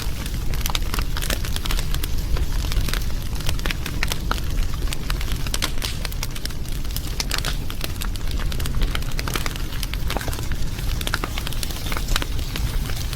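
Wood fire crackling, with many quick, irregular snaps and pops over a steady low rumble of the flames.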